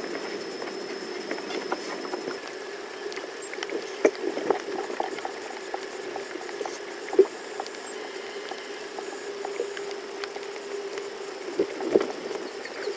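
Water sloshing and lapping around a small boat's hull: a steady wash with many small scattered pops and drips, and a few louder knocks, the loudest about halfway through and another pair near the end.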